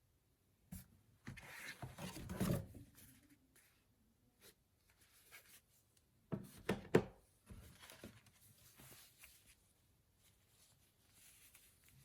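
Hands handling gift packaging: rustling of paper or card, loudest about two seconds in, and a few sharp taps and knocks about halfway through, then softer rustling.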